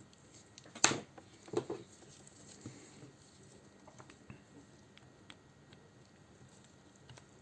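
A small plastic part being cut away with a hand tool: a sharp snap about a second in, a second crunch half a second later, then scattered light clicks of handling.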